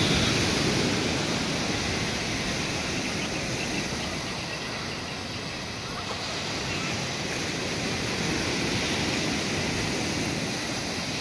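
Surf washing onto a sandy beach: a steady rush that swells and eases, loudest near the start and again about eight seconds in.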